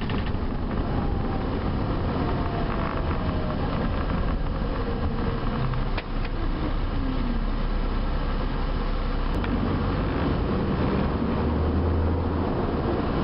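Bus driving, heard from inside: steady engine and road rumble with faint falling whines. There is a brief drop in the sound about six seconds in, and the low hum grows stronger near the end.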